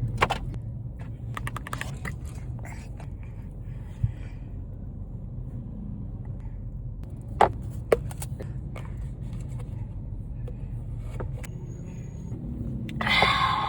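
Steady low background hum with scattered clicks and scrapes of cutlery on plates, including two sharp clinks about halfway through.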